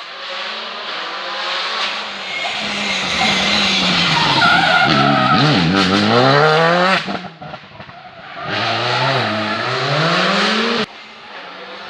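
Rally car engine revving hard, its pitch climbing and falling through gear changes and lifts, with tyres squealing as the car slides sideways through a corner. The engine eases off briefly about two-thirds of the way through, revs up again, then the sound drops away abruptly near the end.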